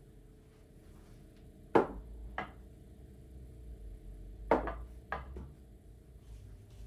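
Four sharp knocks of hard objects, in two pairs about half a second apart. The first knock is the loudest.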